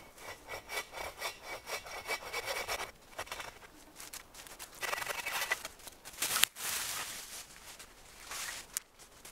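Quick back-and-forth rasping strokes on wood, in several spells with short pauses, and one sharp knock past the middle.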